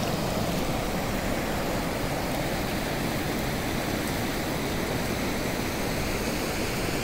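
Mountain stream rushing steadily, a continuous even noise of running water.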